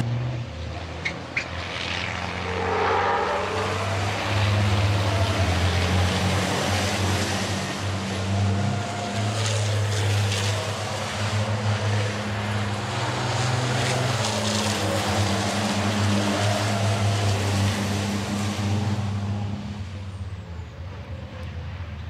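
Racing trucks' diesel engines running on track, a steady low drone with a short gliding pitch change a few seconds in.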